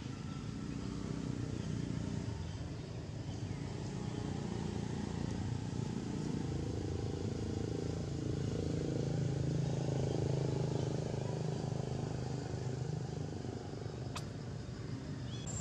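A motor vehicle's engine running steadily, growing louder toward the middle and fading again as it passes by, with one sharp click near the end.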